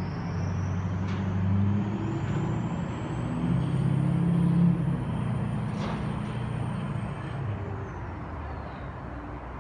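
A heavy engine rumbling with a low steady drone that fades out near the end. Over it runs a thin high whine that climbs slowly and then falls away.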